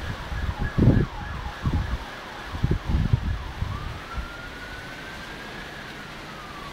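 An emergency-vehicle siren: quick falling sweeps at first, then one slow wail that rises, holds, and falls away near the end. Low thumps hit the microphone during the first half.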